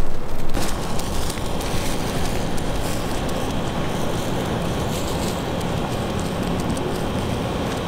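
Steady rushing noise with faint scattered crackles, starting abruptly about half a second in.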